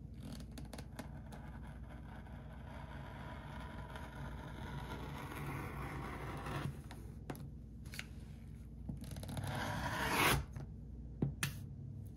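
Rotary cutter blade rolling and slicing through leather against a cutting mat: a long, steady rasp that builds over the first six seconds, then a second, louder cutting stroke about nine seconds in. Two short clicks follow near the end.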